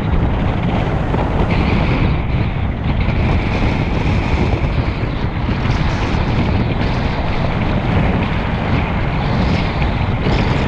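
Steady wind buffeting the microphone of an open-top convertible on the move, mixed with the car's road and engine noise.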